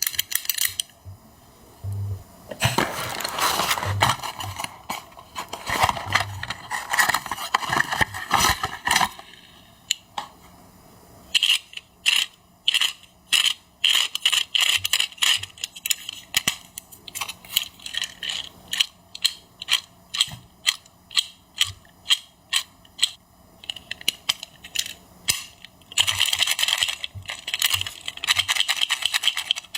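Unboxing of a Tomica diecast toy truck: packaging crinkling and rustling, then a long run of sharp small clicks and taps about two a second, then more crinkling near the end.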